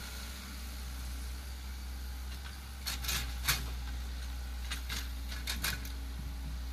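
Diesel engine of a forestry machine running steadily, with several sharp knocks about halfway through and a few more near the end.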